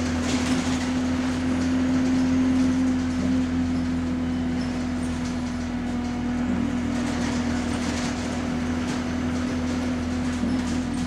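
Bus engine running while the bus drives, heard from inside the passenger saloon: a steady low drone with a held hum and road rumble, and a few light rattles.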